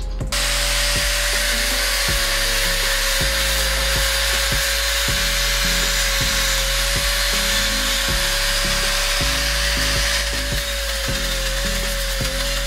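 Angle grinder with a sanding disc starts a moment in and runs steadily, sanding rust off a steel ball-peen hammer head. Its motor gives a high whine that holds one pitch over a dense scraping hiss.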